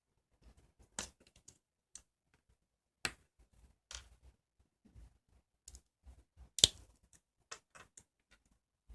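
Slime being handled by hand: scattered sharp clicks and pops at irregular moments, the loudest about two-thirds of the way through.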